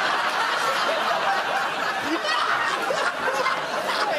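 Studio audience laughing, a steady wash of many voices laughing together.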